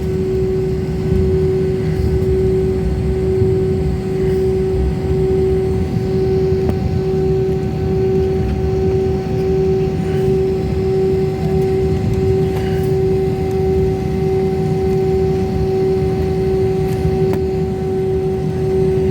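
Airliner cabin drone from the jet engines: a steady hum with a clear held tone over a low rumble, unchanging throughout.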